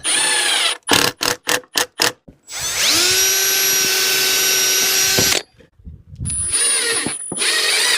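Power drill with a 1/8 inch bit pre-drilling pilot holes in wood: a short run, several quick trigger bursts, then a longer run of about three seconds whose whine rises as it spins up and then holds steady, and another run near the end.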